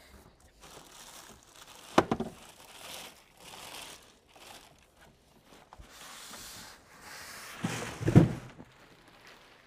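Plastic packaging bag crinkling and cardboard carton rustling as a sewing machine is lifted out of its box. There is a sharp knock about two seconds in and a heavier thump near the end.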